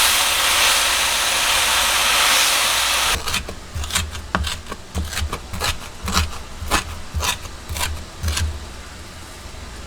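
A steady, loud hiss that stops abruptly about three seconds in, followed by a run of sharp knocks with dull thumps, roughly two a second, thinning out near the end.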